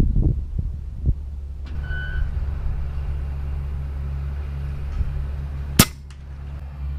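A single sharp, short shot from a moderated .22 Umarex Gauntlet 2 PCP air rifle about six seconds in, over a steady low rumble.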